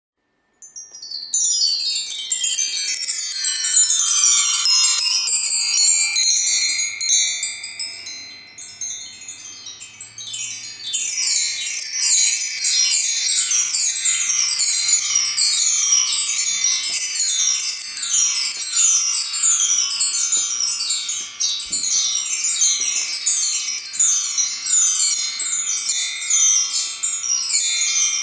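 Metal tube wind chime ringing, its tubes struck again and again so that many bright notes overlap and ring on. The ringing thins out for a couple of seconds about a third of the way through, then picks up again.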